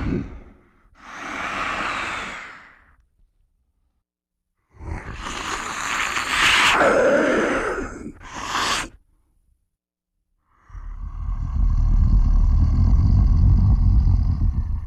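Movie monster sound effects made by a man's voice: a breathy wheeze, then a longer hissing growl that drops in pitch and ends in a short rasp, then, about eleven seconds in, a long, steady low growl.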